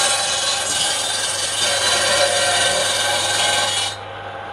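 Table-mounted circular saw ripping lengthwise through a thick block of wood, a steady loud cutting noise over the hum of the saw's motor. The cutting noise stops abruptly about four seconds in, leaving the motor running.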